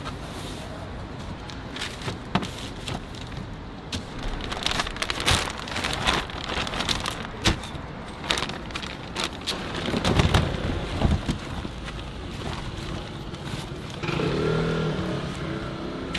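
Street noise with a car passing, a low rumble swelling and fading about two-thirds of the way in, over scattered clicks and rustles.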